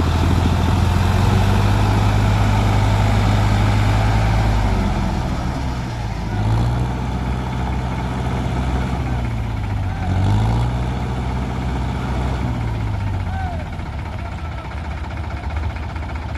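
Tractor diesel engine running hard. Its revs dip and pick up again twice and then drop lower near the end.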